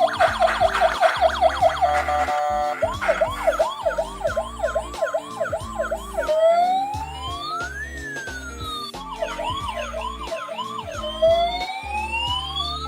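Electronic ambulance siren sounds: a fast yelp warble, changing about six seconds in to a slow wail that rises and falls, then back to the yelp and another rising wail near the end. Several sirens overlap, over a low stepped electronic tune.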